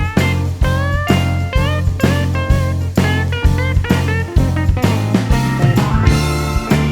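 Background music: blues-rock with electric guitar bending notes over a steady bass and drum beat.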